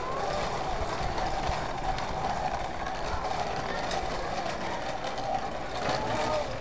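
Hard plastic wheels of a child's ride-on toy rolling over concrete, a steady rumble with occasional small clicks.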